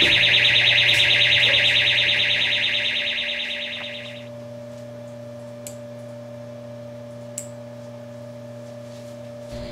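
An infrared motion-sensor guest bell sounds its alarm, set off by a person's movement, to scare off an intruder. It is a loud, rapidly pulsing high electronic buzz that fades out about four seconds in, leaving a steady low hum.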